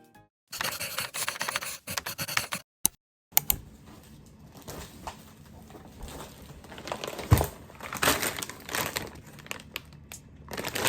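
Rustling, crinkling and clicking sounds of things being handled, in short clips broken by abrupt silent cuts.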